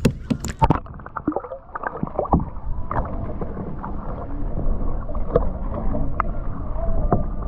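A released bass splashing into lake water, with a few sharp splashes and knocks in the first second. After that comes muffled underwater sloshing and bubbling from a submerged camera, with scattered small clicks.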